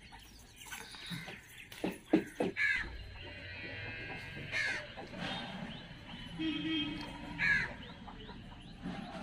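Crows cawing outdoors, three harsh caws a couple of seconds apart, with a few knocks near the second caw.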